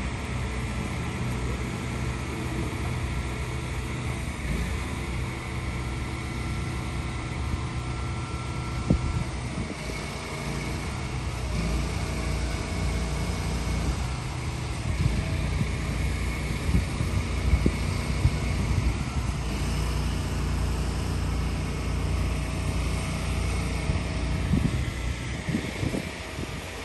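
Diesel engines of heavy-haul semi trucks running slowly as they pull long steel bridge-beam loads past, a steady low drone with a few knocks partway through.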